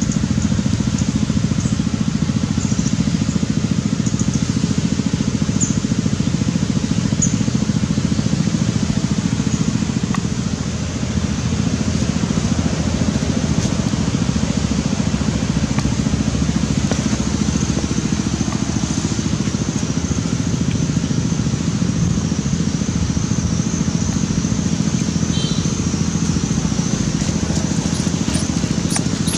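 Steady low rumble throughout, with thin high chirps and a wavering high trill in the second half.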